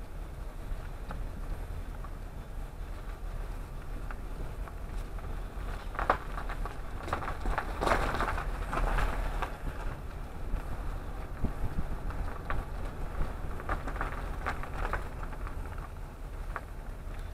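A car rolling slowly, with a low steady rumble and scattered crackles and clicks that come thickest in the middle.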